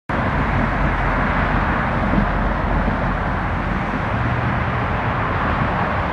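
Steady rush and rumble of road traffic, with no single vehicle standing out.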